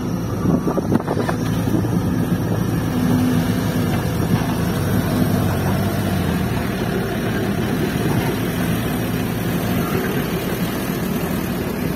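Diesel engine of a fully loaded light dump truck running steadily under load as the truck pulls away across soft dirt.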